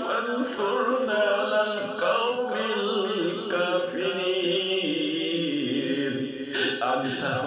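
A voice chanting an Arabic dua (supplication) in a slow, melodic recitation, with long drawn-out notes.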